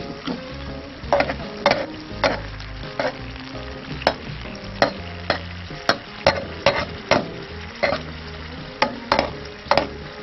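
A tailor fillet frying in oil in a pan over coals: a steady sizzle with sharp pops or crackles a little more than once a second.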